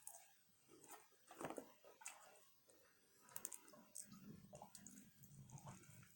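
Faint chewing and mouth clicks of a person eating, in scattered soft bursts, with a faint low hum from about four seconds in.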